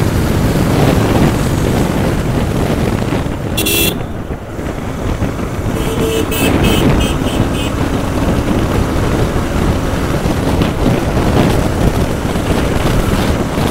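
Single-cylinder Bajaj Pulsar 150 motorcycle cruising on a highway, with steady engine and riding noise. A vehicle horn gives one short toot about four seconds in, then a quick string of toots around six to seven seconds.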